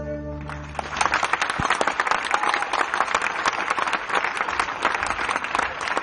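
Sustained music chords die away about a second in. Then an audience applauds, with dense, fast clapping.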